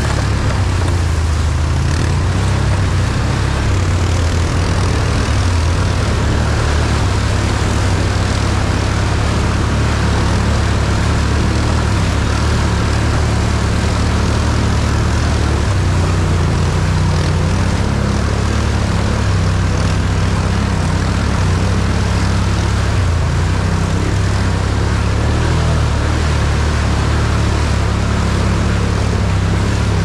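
An off-road vehicle's engine running steadily under way, a continuous low drone with a hiss over it.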